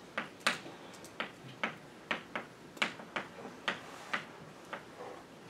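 Chalk writing on a blackboard: short, sharp taps and brief scratches at an uneven pace, about two to three a second.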